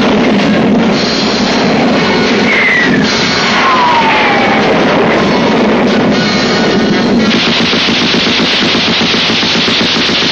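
War-film soundtrack: music mixed with battle effects, with falling whistling tones in the first few seconds and, from about seven seconds in, a long rapid burst of machine-gun fire as a fighter jet strafes a ground position.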